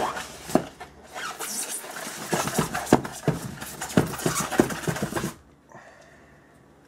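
Cardboard packaging being handled: the printed outer box sliding and scraping off a foam inner tray, with rustling and sharp knocks, stopping about five seconds in.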